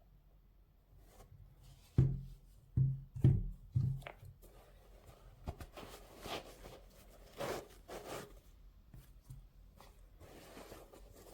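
Handling noise from a pair of sneakers and their packaging: four dull knocks in quick succession about two seconds in, then softer rustling and scraping.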